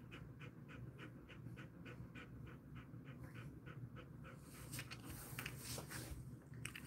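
Jindo-mix dog panting softly with his mouth open, quick and even at about four pants a second. The panting stops about four seconds in and gives way to a few faint rustling noises as he moves.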